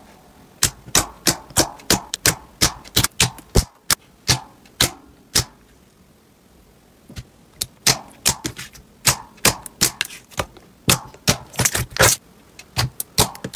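Clear pearly slime squeezed and pressed by hand, with trapped air popping out in a fast, irregular series of sharp clicks and snaps. There is a short pause midway.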